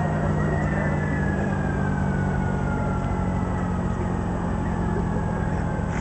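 Air raid siren winding down, its pitch falling slowly over the first few seconds, over a steady low hum.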